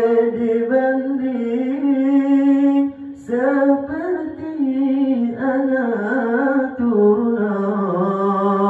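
A solo male voice chanting a Malay Mawlid praise song for the Prophet Muhammad through a microphone and PA, in long held notes with melismatic turns and a short breath break about three seconds in.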